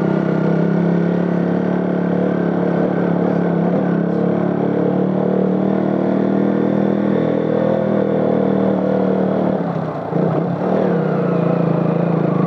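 Motorcycle engine running steadily while riding, its level dipping briefly about ten seconds in before picking up again.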